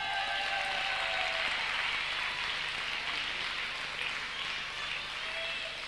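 Arena crowd applauding after a point, with a few shouts. The applause starts suddenly and slowly dies down.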